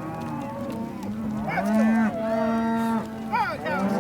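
A herd of cattle mooing as it is driven along, several long moos overlapping one another.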